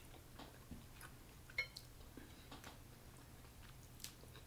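Faint mouth sounds of chewing a seafood boil of shrimp, sausage and rice, with a few small clicks and taps, the sharpest about a second and a half in.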